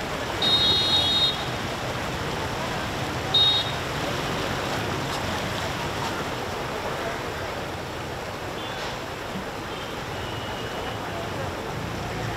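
Steady rushing of a river in flood, its fast brown water running high. Near the start two short high-pitched tones cut through, the first about a second long and the second brief.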